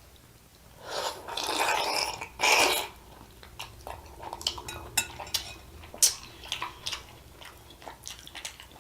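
Close-miked eating sounds: two louder, noisy mouthfuls in the first three seconds, then quieter chewing with scattered wet mouth clicks.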